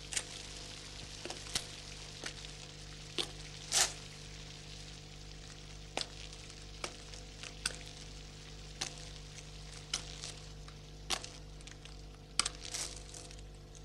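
Crackle and hum of an old optical film soundtrack: a steady low hum and hiss with scattered sharp clicks and pops at irregular intervals, the strongest about four seconds in and again near the end.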